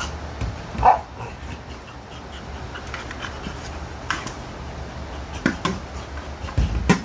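A dog making a few short sounds while working a red ball out from under a chair, the loudest about a second in, with a dull knock near the end.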